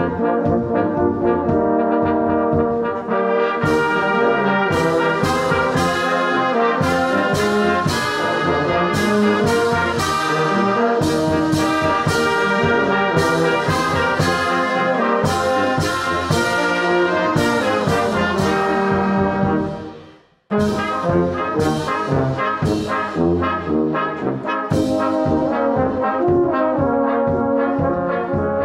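Youth brass band (trumpets, trombones, euphoniums, sousaphone, clarinet and bass drum) playing a hymn, with regular percussion strokes marking the beat. About two-thirds of the way through the band dies away and stops for a moment, then comes back in.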